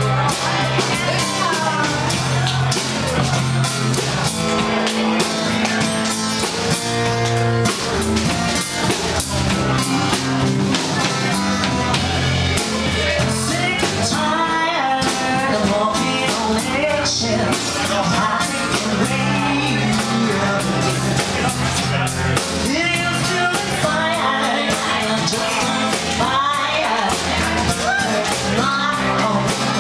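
Live band playing a song: a woman sings into a microphone over acoustic guitar, electric guitar and a drum kit.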